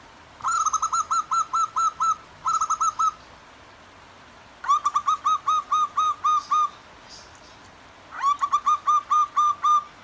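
Zebra doves (perkutut) calling: four runs of quick, evenly repeated cooing notes, about six a second, over the faint steady rush of a stream.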